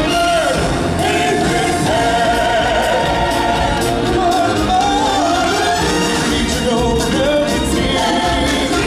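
Stage-show music: a chorus of singers over a full, loud band track, running steadily.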